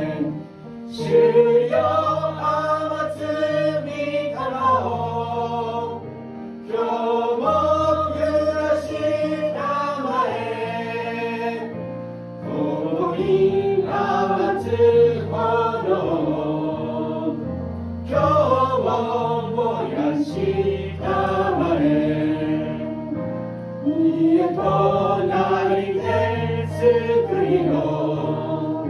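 A woman singing a Japanese hymn in phrases of a few seconds, her voice wavering with vibrato, over an instrumental accompaniment of steady held low notes.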